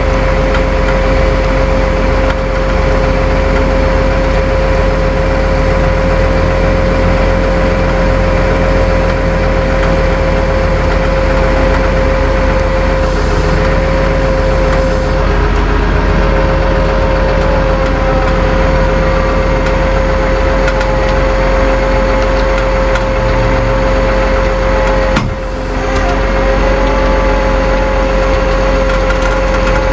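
Tow truck's engine running steadily with the constant whine of its hydraulic winch as it pulls a car up out of a ditch on two cables; the sound drops out briefly about 25 seconds in.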